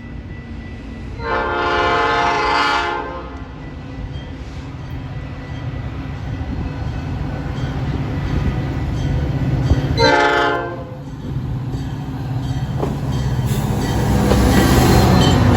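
Metra commuter train's locomotive air horn sounding a chord, a blast of about two seconds and then a shorter one about ten seconds in, over the running rumble of the train. The train noise grows louder near the end as it passes.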